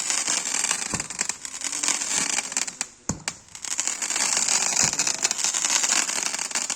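25-shot rider firework with crackling effect: dense, continuous crackling with louder pops about a second in, around three seconds and near five seconds. The crackle dips briefly around three seconds and dies out near the end.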